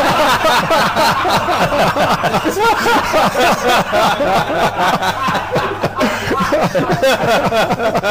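Audience laughing loudly and at length at the punchline of a joke, many voices overlapping throughout.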